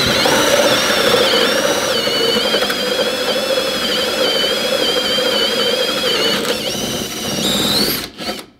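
Bosch cordless drill spinning a Bosch multi-blade hole saw through a wooden board while the saw is rocked to keep it cutting. The motor whines with a high squealing tone that steps down slightly about two seconds in. It stops shortly before the end as the saw breaks through and frees the plug.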